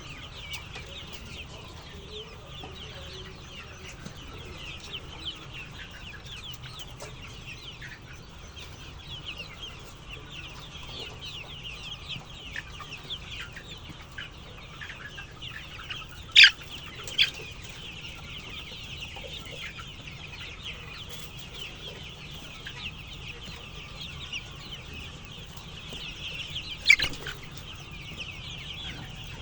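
A flock of chickens calling continuously, a dense chatter of many short calls, with a few louder calls close by about halfway through and near the end. A steady low hum runs underneath.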